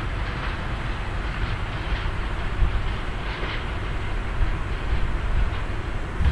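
Loaded freight train of flat wagons rolling along the line out of sight: a steady low rumble.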